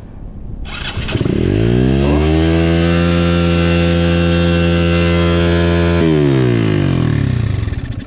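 Enduro motorcycle engine speeding up over about a second and a half, running at a steady pitch for several seconds, then slowing back down near the end.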